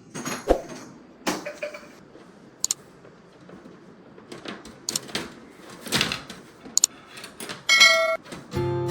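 Irregular knocks and clicks of objects being handled and set down, with a short metallic ring about eight seconds in. Music comes in just before the end.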